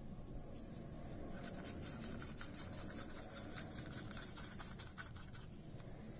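A stick stirring UV resin tinted with white paint in a small paper cup, scraping against the cup's sides and bottom in a run of quick scratchy strokes from about a second in until near the end.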